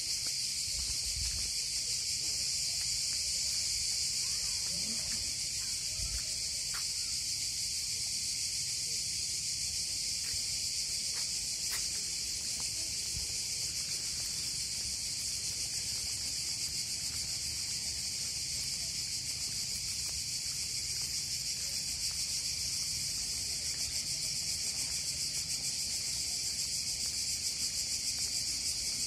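A steady, high-pitched chorus of cicadas buzzing without a break.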